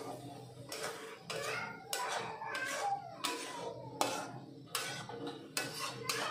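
A metal spatula scrapes and knocks against an aluminium kadai as it stirs a wet curry: about a dozen short, uneven scrapes.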